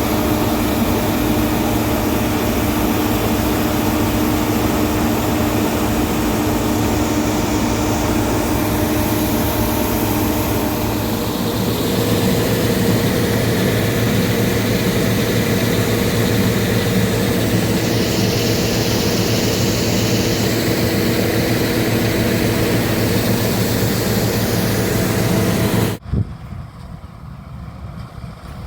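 Laverda Fiatagri 3790 combine harvester running steadily under work, its engine and machinery giving a loud drone with several steady tones. The tones shift about halfway through, and near the end the sound drops suddenly to a much quieter level.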